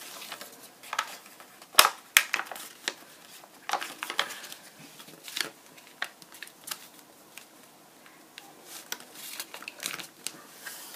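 A sheet of lined notebook paper being folded and creased by hand: scattered crisp rustles and clicks of the paper, with two sharp clicks about two seconds in, a quieter spell in the middle, and more rustling near the end.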